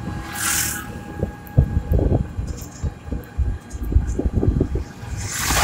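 Rattling rumble of a three-wheeled auto-rickshaw on the move, heard from its passenger seat, with bumps jolting through the frame. Two brief rushes of noise come through, one about half a second in and one near the end.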